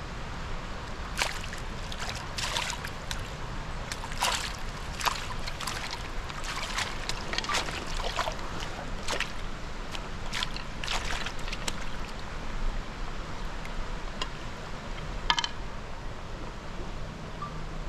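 Shallow stream running over rocks, with a series of short splashes and sloshes as a fish is handled in a landing net in the water, most of them in the first twelve seconds. A single sharp click sounds near the end.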